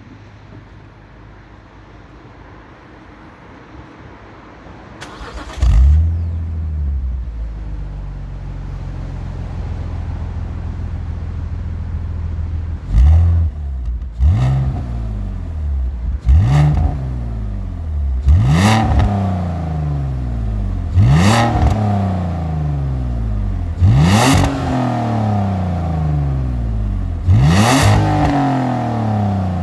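BMW Z4 3.0i's 3.0-litre M54B30 straight-six on its stock exhaust (cat, mid silencer and back box all standard). After a sharp surge about five seconds in it settles to a steady idle, then the throttle is blipped about seven times, each rev rising sharply and falling back to idle.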